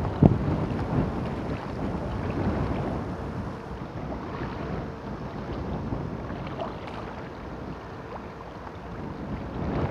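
Wind buffeting the microphone over small waves washing against a rocky sea shore, with one short knock just after the start.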